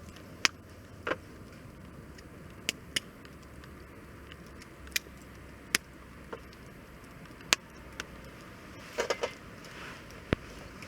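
Wood fire crackling in a tent-Mark DESIGNS Tonbi fire grill: sharp, irregular pops, roughly one a second, over a low steady hiss, with a quick cluster of pops near the end.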